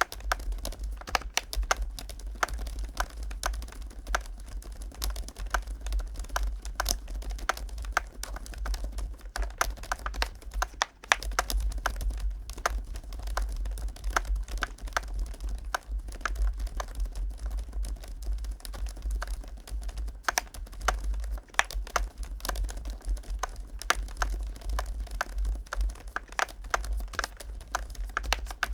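Continuous fast typing on a GLITTER65 HE Pro 65% keyboard with magnetic Hall-effect switches in a polycarbonate case: a dense stream of keystroke clacks, several a second.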